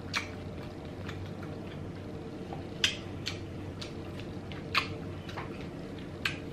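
Close-miked chewing of soft crab and lobster meat: quiet wet mouth noises with a few sharper smacking clicks spread through, over a steady low background hum.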